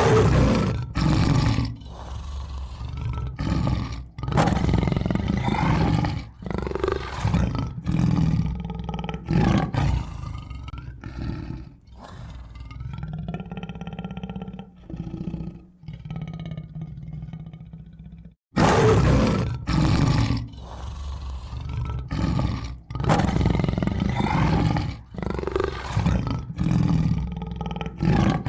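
Tiger roaring and growling in a loud series of roars, one every second or two. After a brief silence about two-thirds of the way through, the same sequence of roars starts over.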